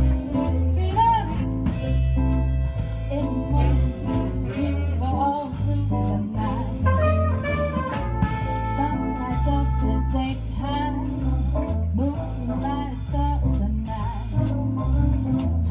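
Jazz band playing: a plucked upright bass line stepping note by note, with a singer and brass horns over it.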